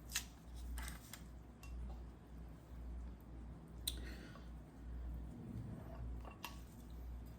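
Food being handled at the table as eating begins: scattered light clicks of utensils or dishes and soft, wet squishing, over a low steady hum.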